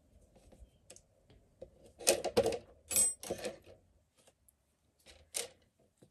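Handling noise as a crocheted flower with its stem wire is set down on a tabletop and a wire and small crocheted piece are picked up: a few irregular clicks and rustles, the loudest cluster about two to three and a half seconds in and one more near the end.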